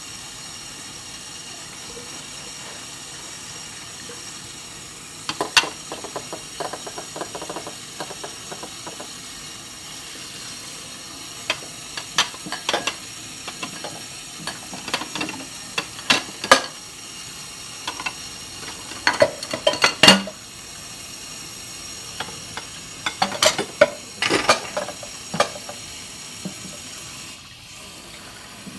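Dishes and cutlery being handled for washing, clinking and clattering in several short bursts over a steady hiss.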